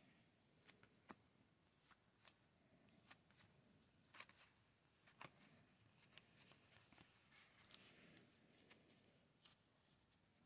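Faint, irregular clicks and rustles of trading cards in plastic sleeves being handled and stacked, the sleeves tapping and sliding against each other.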